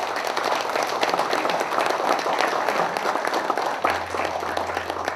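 A roomful of people applauding, many hands clapping together and starting to die away near the end.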